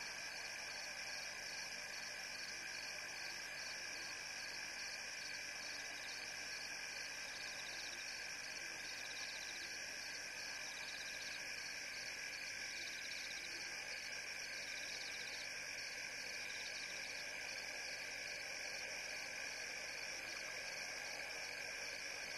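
Night chorus of frogs and insects: steady high-pitched trilling with a finer pulsing layer over it.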